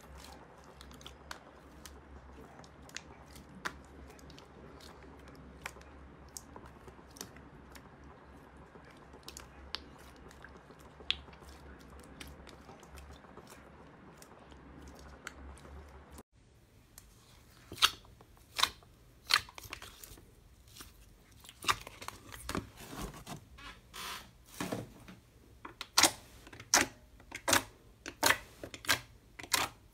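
Hands kneading thick orange slime in a plastic tub, a soft squishing with faint small clicks. About sixteen seconds in, fingers pressing into red glitter slime make a run of loud, sharp pops and clicks as trapped air bursts, coming faster near the end.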